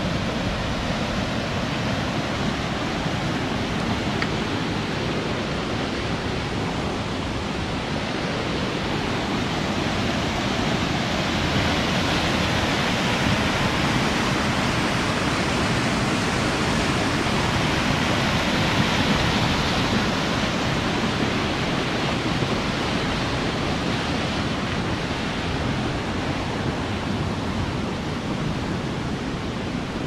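Rushing white water of a rocky stream, a steady rushing noise that grows a little louder about halfway through.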